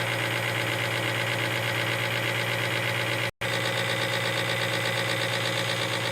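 Diesel pump test bench running a Caterpillar HEUI pump: a steady mechanical drone with a low hum and an even, regular pulsing. It cuts out for an instant just past halfway.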